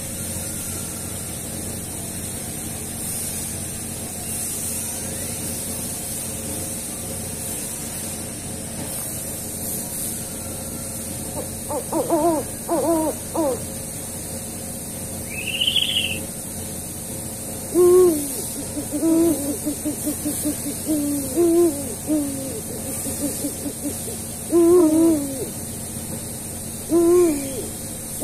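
An owl hooting: after a steady hiss, a short run of low hoots about halfway through, then repeated single hoots with quick runs of notes between them.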